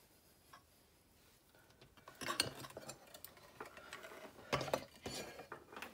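Handling noise from a security camera housing being picked up and turned over on a workbench: a string of light clicks, knocks and rattles beginning about two seconds in.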